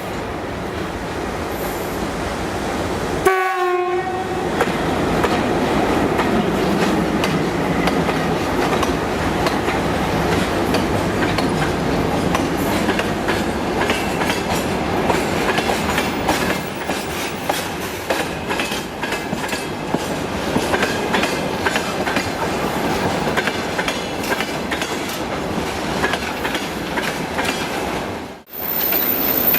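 Electric train passing through the station: a steady rumble with the wheels clacking over rail joints, and a short horn blast about three seconds in. The sound drops out briefly twice.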